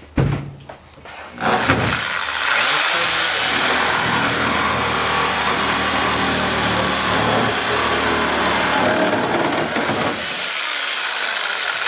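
Reciprocating saw (Sawzall) running steadily as it cuts to enlarge the hood-scoop hole. It starts about two seconds in after a few knocks and eases off slightly near the end.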